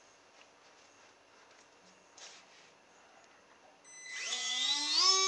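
The small brushed DC motor of a model boat's water-jet pump starts near the end, a whine rising in pitch for about a second and then holding steady. Before it there is only near silence and a faint handling rustle.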